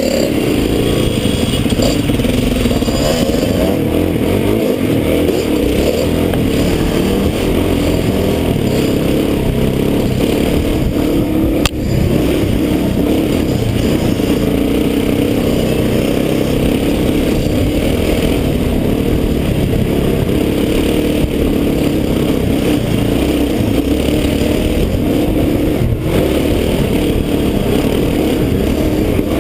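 Off-road dirt bike engine running steadily under way on a rough trail, its pitch rising and falling with the throttle. A single sharp knock sounds about twelve seconds in.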